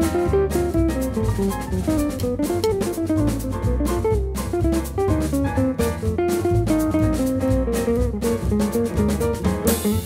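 Background music: a jazzy tune on plucked guitar over bass and drums, with a steady beat.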